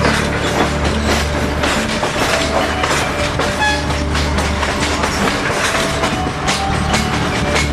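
A train running on rails, its wheels clattering over the track with irregular knocks over a steady low rumble.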